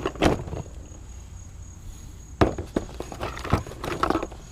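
Rolls of copper wire being handled and pulled from a box: a few sharp knocks and some rustling. A steady high chirring of crickets runs underneath.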